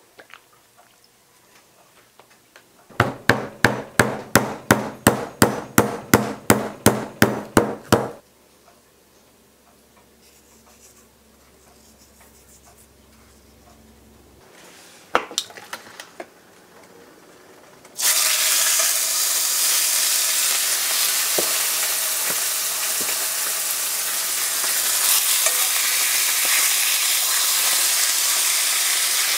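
A run of about sixteen even knocks, about three a second, then a quieter stretch with a low hum and a couple of knocks. About eighteen seconds in, chicken pieces start searing in a hot cast-iron skillet: a sudden, loud, steady frying sizzle that carries on to the end.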